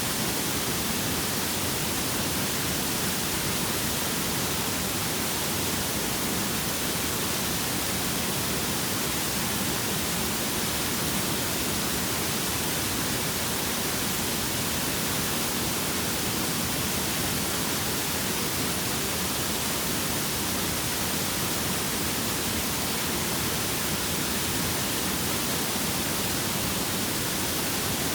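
Waterfall: falling water making a steady, even rushing hiss.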